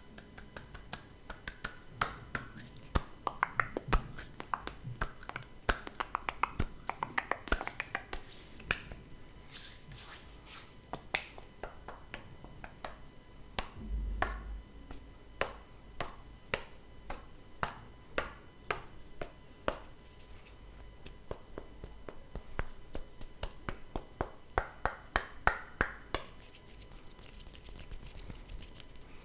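Hand sounds made close to the microphone: a long series of sharp finger snaps, spaced out in places and in quick runs of several a second in others.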